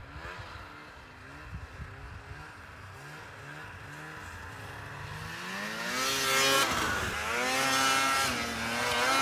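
Ski-Doo Renegade 600 snowmobile's two-stroke engine revving, its pitch rising and falling again and again. It grows much louder and higher from about five seconds in.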